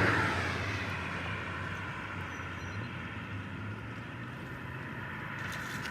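A steady engine drone under constant rushing noise. A loud rush of noise fades away in the first second.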